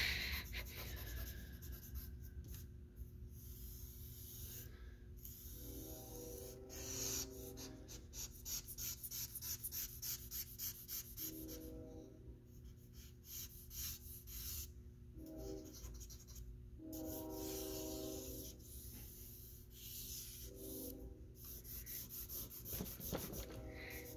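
Vine charcoal scratching and rubbing across 80-pound drawing paper in quick repeated strokes as an area is shaded in.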